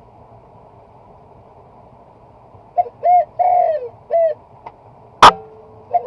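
A bird calls a few short notes, then an NHX Polymax A12L HyperX air rifle fires one sharp shot a little after five seconds in.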